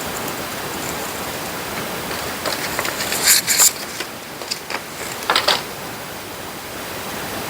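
Small plastic toy packaging and pieces being handled, with bursts of crinkling and clicking between about two and a half and five and a half seconds in, over a steady hiss.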